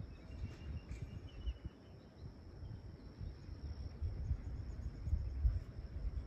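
A steady high insect trill over uneven low wind rumble on the microphone, with a few faint bird chirps in the first second or two.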